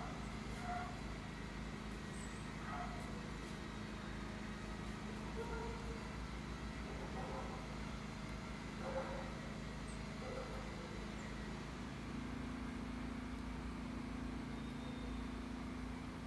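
Steady low outdoor background rumble, with a few faint brief sounds scattered over it.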